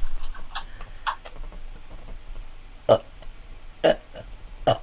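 A person burping: the tail of a loud, deep burp cuts off right at the start. It is followed by a few short, sharp sounds spaced about a second apart.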